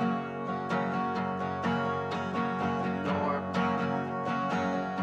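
Two acoustic guitars strumming chords together in a steady rhythm.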